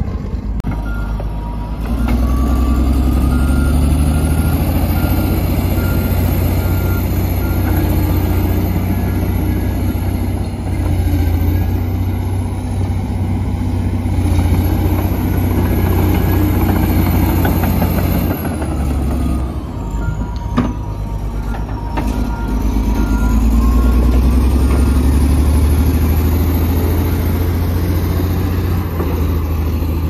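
Komatsu D85EX bulldozer's six-cylinder turbodiesel working under load: a deep rumble that swells and eases as the engine is revved up and down, with a high whine rising and falling along with it. A backup alarm beeps steadily while the machine reverses, once at the start and again about twenty seconds in, and there is a single sharp knock just before the second spell of beeping.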